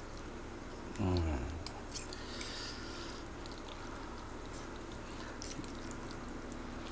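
Close-up eating sounds of a person eating spicy Aceh noodles: a short hum falling in pitch about a second in, then soft wet mouth clicks and a brief hiss.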